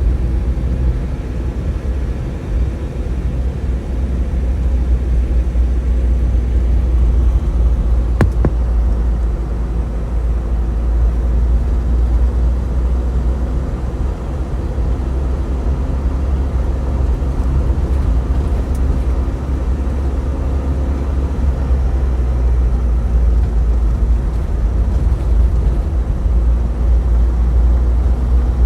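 Loud, steady low rumble, with a single sharp click about eight seconds in.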